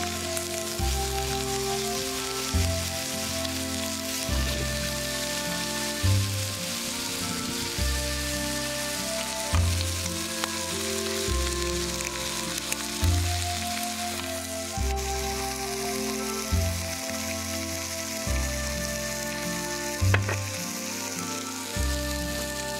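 Pork belly and sausage slices sizzling steadily on a hot grill pan. Light background music plays over it, with a low bass note about every two seconds.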